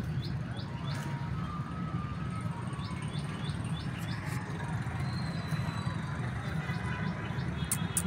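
Outdoor ambience: a steady low rumble, with small birds chirping in short quick runs, the main run about three seconds in.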